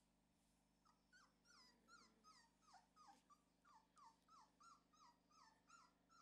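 Four-week-old puppy whimpering faintly: a quick string of short, high whines that fall in pitch, about three a second, starting about a second in.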